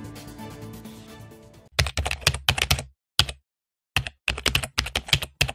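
Background music fading out, then typing on a Wisely 99-key mechanical keyboard: quick runs of sharp key clicks in uneven bursts with short pauses, starting about two seconds in.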